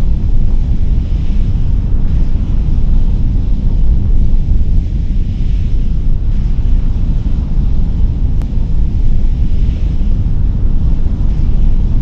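Space Shuttle Main Engines, the three liquid-hydrogen/liquid-oxygen rocket engines of the orbiter, firing together with a steady, deep roar that holds level without breaks or distinct bangs.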